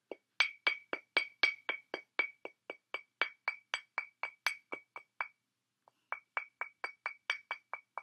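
A white cockatoo tapping its beak rapidly on a glass wine bottle, about four taps a second, each with a short glassy ring. It stops for about a second midway, then starts tapping again.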